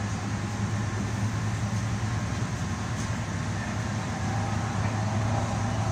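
DART light rail car running at speed, heard from inside the passenger cabin: a steady rumble of running noise with a constant low hum.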